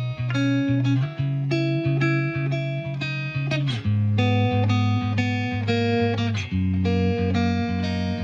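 Background music: guitar picking a steady run of plucked notes over a shifting bass line.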